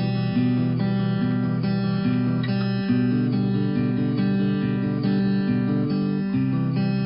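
Background music: a strummed acoustic guitar track with a steady rhythm.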